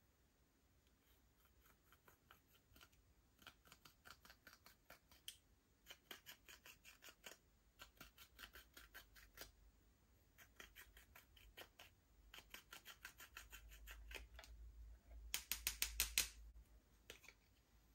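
Slime being squeezed and worked by hand, giving faint runs of quick crisp clicks and pops at about five or six a second, with short pauses between runs. The loudest run comes near the end.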